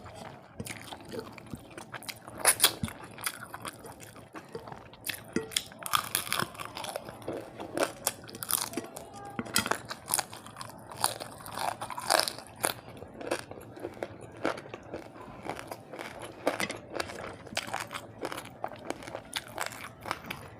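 Close-miked eating: irregular crunching bites and wet chewing of rice with fish curry, fried fish and crisp fried potato juliennes.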